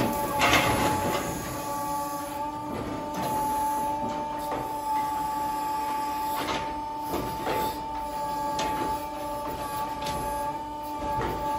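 A tined hay grab on a hydraulic crane arm tearing apart compressed lucerne (alfalfa) bales: a steady machine whine runs under irregular rustling crunches of hay being ripped and dropped about once a second.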